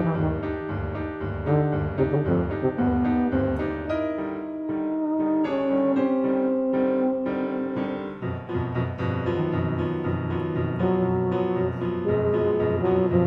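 Steinway grand piano and tuba playing a rag: the piano keeps up a steady bouncing chordal accompaniment while the tuba plays the tune. Roughly 4 to 8 seconds in the low bass drops away and long held notes sound over lighter piano, before the full bouncing accompaniment returns.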